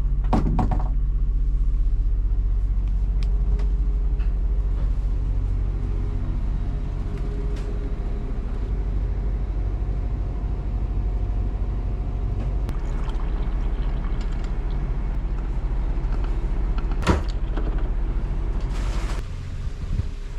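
An engine running with a steady low rumble. A single sharp knock comes about seventeen seconds in.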